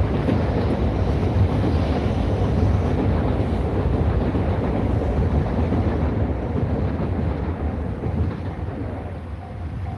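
Train running past close by: a loud, steady rumble of wheels on rail that begins to die away about eight seconds in.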